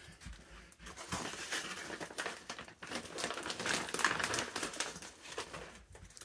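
Crinkling and rustling of packaging as in-shell salted peanuts are handled, a dense run of small crackles that is loudest in the middle and dies down near the end.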